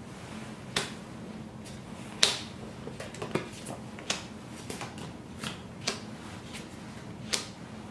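Spanish playing cards being dealt one by one onto a wooden table: a dozen or so sharp card snaps and taps at irregular intervals, the loudest a little over two seconds in.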